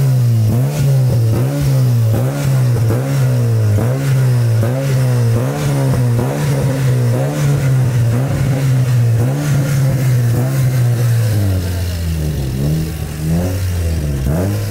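Car engine being revved in quick, regular throttle blips, about one and a half a second. Near the end it drops lower and is then revved more slowly a couple of times.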